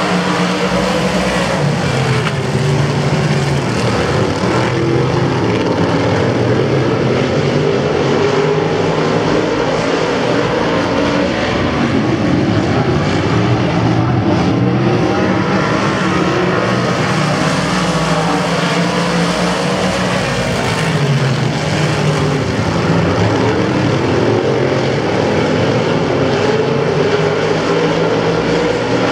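Engines of a pack of winged sprint cars racing together, loud and continuous. Several engine notes overlap, rising and falling in pitch as the cars accelerate and lift through the corners.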